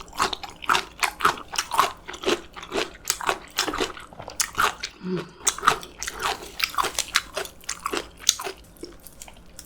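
Close-miked eating: a steady run of crunchy chewing, about three crunches a second.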